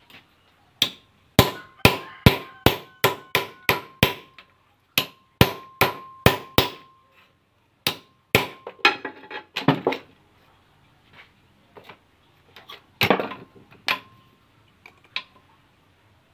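Hammer striking a small steel part held on a bench vise's anvil during a ball-joint rebuild. Runs of sharp metal blows come about two to three a second, each leaving a brief ringing tone, and a looser group of knocks follows near the end.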